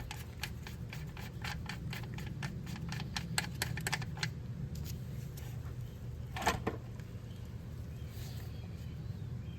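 A run of light, sharp clicks at about three or four a second for the first four seconds, then a single louder knock about six and a half seconds in, from hand work on a lawnmower wheel. A low steady hum runs underneath.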